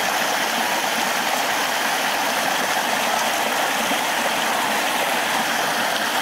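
Shallow, rocky mountain river rushing over stones: a steady, even rush of water.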